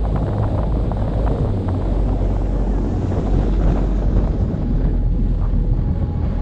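Wind buffeting the microphone over a steady low rumble, typical of a camera moving fast downhill on a skier.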